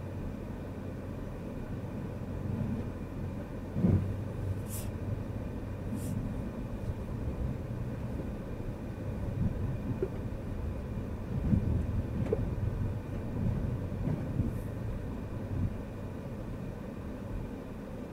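Car rolling slowly over rutted packed snow and slush on Continental TS860 winter tyres, heard from inside the cabin: a steady low rumble of road and engine noise with irregular thumps, the loudest about 4 s in and again a little past the middle, and a few brief hisses.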